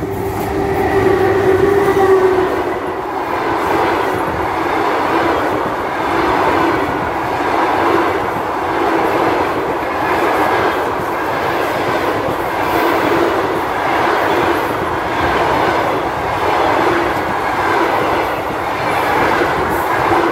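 Passenger train hauled by an EP1M electric locomotive passing close at speed: a loud rush of coaches going by, swelling and easing every couple of seconds with the clatter of wheels over the rails. A steady tone sounds through the first two seconds.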